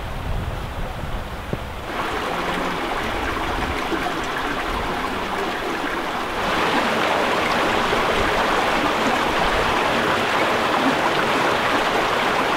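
A mountain creek rushing over rocks, getting louder in two steps about two and six and a half seconds in. Wind rumbles on the microphone during the first two seconds.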